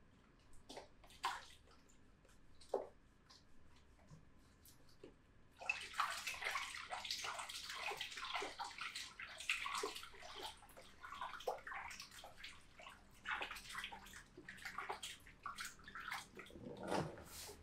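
Scattered small clicks, then from about six seconds in a dense, irregular splashing and sloshing of water, full of small clicks.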